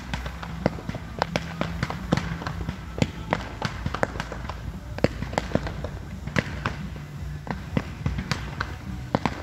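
Aerial fireworks finale going off in quick succession: many sharp bangs and crackling reports, several a second and of uneven loudness, over a low rumble, with a faint low hum that comes and goes.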